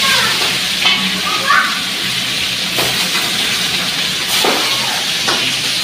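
Fish and potato pieces frying in hot oil in an aluminium wok: a steady sizzle, with a few sharp pops and clicks scattered through it.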